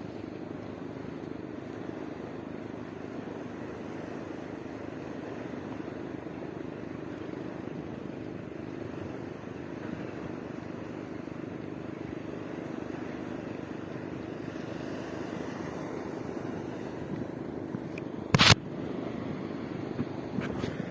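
A boat engine running steadily, with one sharp knock about eighteen seconds in.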